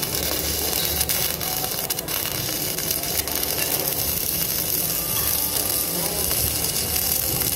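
Self-shielded flux-core welding arc (Lincoln NR-305 wire, 5/64 inch, at 36 volts) burning steadily, with a continuous crackling sizzle.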